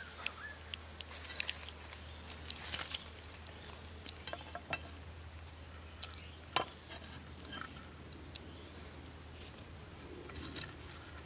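Scattered light clicks and clinks of a knife against a small metal bowl being handled and set on the stones of a fire, with one sharper knock about two-thirds of the way through.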